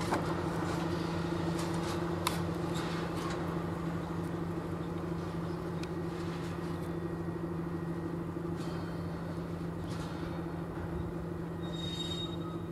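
SM42 diesel shunting locomotive running with a steady engine drone as it moves slowly with a string of tank wagons. A few sharp clanks come in the first few seconds, and a brief high squeal near the end.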